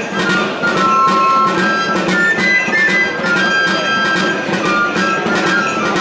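Pipe and tabor playing a lively traditional dance tune: a high one-handed pipe carries a quick melody of clear single notes over steady drum beats.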